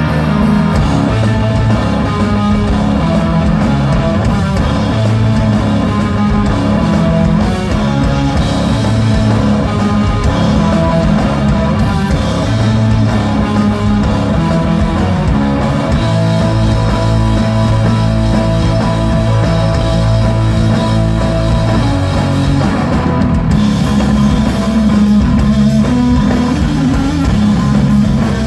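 A stoner rock band playing live: electric guitar, bass guitar and drum kit together in a loud, steady instrumental passage.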